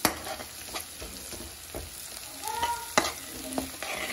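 Chopped garlic and ginger sizzling in hot ghee in a metal kadhai, stirred with a spatula that scrapes and knocks against the pan, with sharp knocks at the start and about three seconds in.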